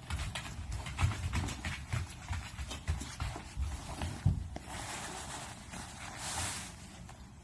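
Pungsan puppies scuffling in a play fight over food: a quick run of paw taps, scrabbles and low thumps, then about two seconds of steady hissing noise.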